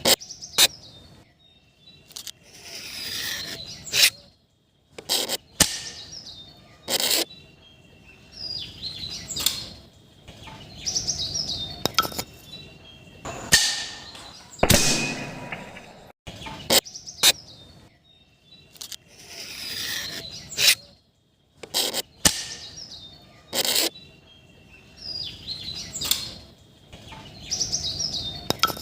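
A gun being fired over and over: about twenty sharp cracks at uneven spacing, several followed by a second or so of whooshing noise, with bird chirps in between.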